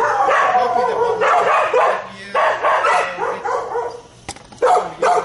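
Dogs barking in kennel runs, in quick runs of calls, with short breaks about two seconds in and again about four seconds in.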